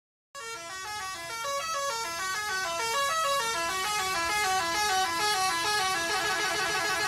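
Horn sound effect sounding a quick run of stepped, held notes, with several tones moving together like a chord-horn tune. It starts abruptly just after the beginning and keeps going steadily.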